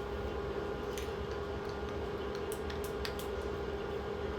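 Faint small clicks and light handling sounds, such as cosmetic packaging or gel being handled, scattered over a steady background hum.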